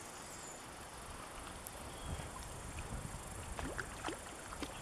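Outdoor ambience by a trout brook: a faint, steady high insect drone over a hiss. Several short chirps come in the second half, along with low rumbles.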